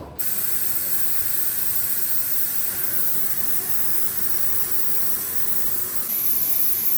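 Gas welding torch flame hissing steadily, as used for brazing refrigeration copper pipe; the hiss gets louder about six seconds in, as when the flame is turned up.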